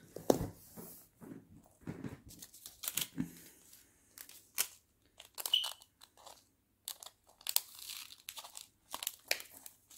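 Irregular crinkling of small plastic craft packets being handled, with light clicks and short rustles and a few brief pauses.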